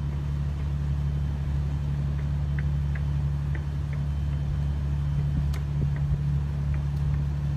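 Boat engine running steadily at cruising speed, heard from on board as an even low drone.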